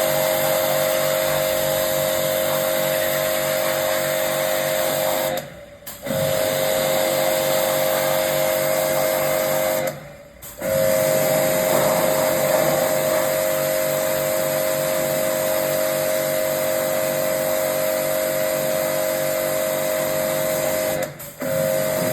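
A small electric motor running with a steady high-pitched whine over a rushing noise. It cuts out briefly three times and starts again at once.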